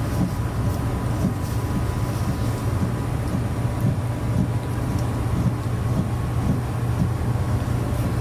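Steady low mechanical hum with a thin high tone over it, from an appliance running in the room.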